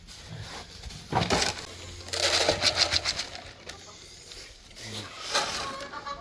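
Backyard chickens making soft, low calls, with a burst of rustling about two seconds in.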